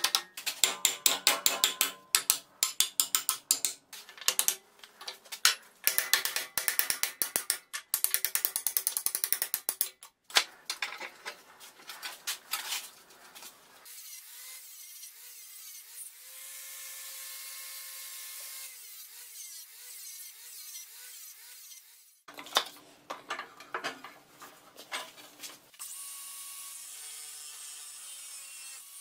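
Rapid mechanical clicking like a ratchet being worked, in long dense runs; in the middle it gives way for several seconds to a quieter steady rubbing noise with faint tones, and near the end another short run of clicking comes before steady noise returns.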